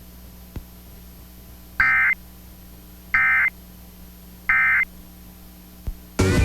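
Emergency Alert System end-of-message data bursts: three short, shrill digital tone bursts about a second apart, the 'NNNN' code that closes an EAS alert, over a faint steady hum.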